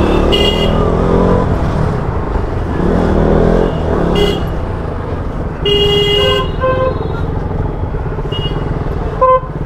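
Traffic from a KTM motorcycle riding slowly through congested street traffic: a steady low engine rumble under traffic noise, with vehicle horns beeping about half a dozen times, the longest honk about six seconds in.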